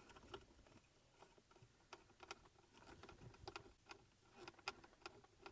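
Near silence with faint, irregular light clicks and taps of small screws and washers being handled.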